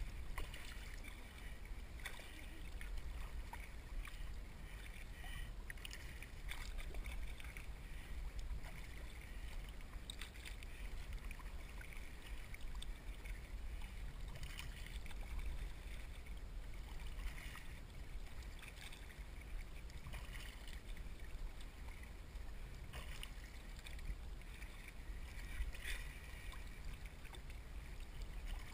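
Sea kayak gliding through calm water, the paddle blades dipping in and splashing every few seconds over a steady low rumble of water moving past the hull.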